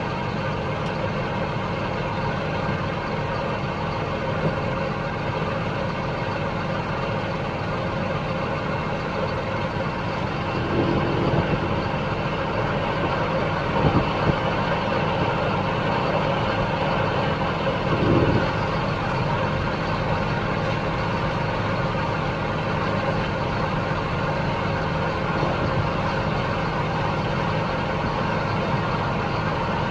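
Heavy diesel harvest machinery running steadily under load, a continuous engine drone with a few brief louder swells about 11, 14 and 18 seconds in.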